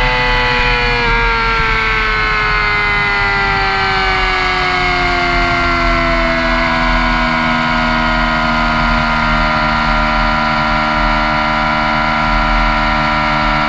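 Yamaha YZF-R6's inline-four engine heard from on board, its revs falling steadily over the first seven seconds or so as the bike slows, then holding steady at a lower pitch.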